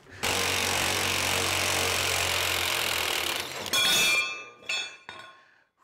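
Cordless DeWalt power tool running steadily on a gear puller's screw for about three seconds as it forces a seized bush-hog wheel spindle out. It stops, and then comes a short metallic clink with ringing and a couple of light knocks.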